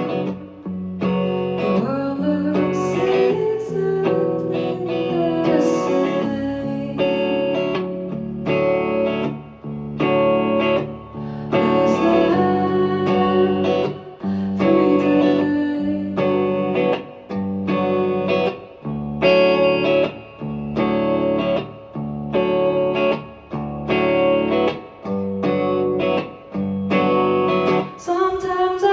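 Live band music in an instrumental passage led by guitar, with chords played in a steady rhythmic pulse.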